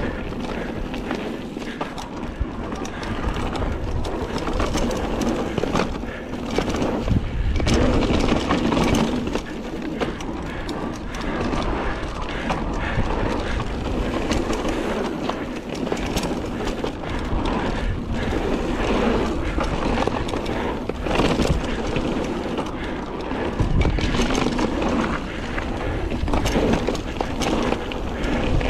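Mountain bike rolling fast down a dirt and gravel trail: tyres crunching and rumbling over the ground, with frequent knocks and rattles from the bike over bumps.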